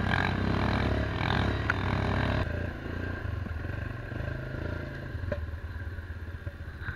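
Linhai quad bike's engine running steadily on the move, with a few knocks and rattles from the machine over the trail. About two and a half seconds in the sound cuts abruptly to a quieter stretch of engine running.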